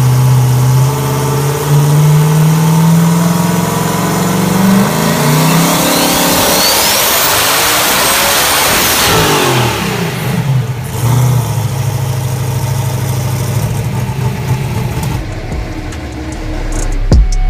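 Big-turbo billet 526-cubic-inch Hemi V8 with a 118 mm Precision turbocharger idling, then revved once a third of the way in. Its pitch climbs with a high turbo whistle rising over it, then falls back to idle.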